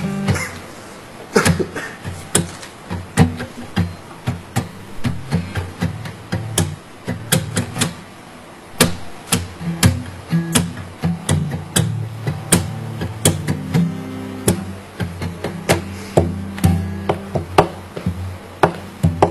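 Acoustic guitar being strummed, chord after chord with sharp attacks roughly once or twice a second.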